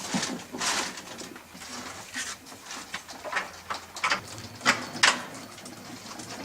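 Rosellas moving about in an aviary: a run of short, irregular rustling and scuffling sounds, the loudest two close together about five seconds in.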